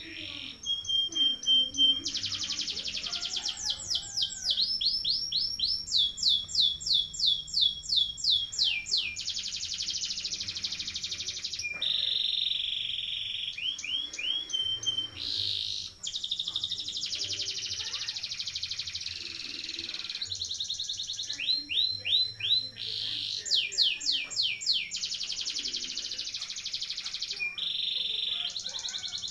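Domestic canary singing a long rolling song: one fast trill after another, each a run of quickly repeated notes lasting one to three seconds before it switches to a new kind of note, some sweeping high and some lower and steadier.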